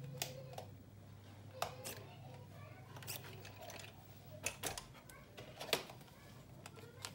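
Scattered clicks and light knocks of a plastic 1/12 RC crawler truck and its pistol-grip transmitter being handled, with the loudest knock near the end as the truck is set down on the desk. A faint steady low hum lies underneath.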